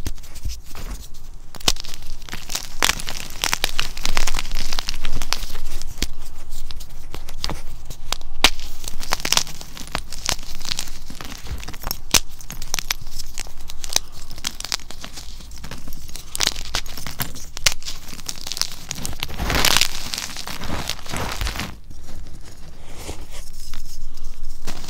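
Blocks of gym chalk crushed and crumbled in the hands over a bin of loose chalk powder: dense, irregular crunching and crackling, loudest about twenty seconds in.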